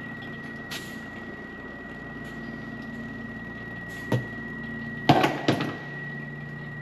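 Battery-powered backpack sprayer's electric pump running, giving a steady high whine over a low hum that cuts off right at the end. A sharp click comes about four seconds in, and two louder knocks follow about a second later.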